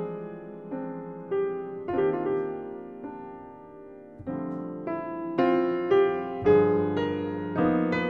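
Background piano music: single notes and chords struck every half second to a second, each fading away, with a softer stretch about halfway through before fuller chords come back.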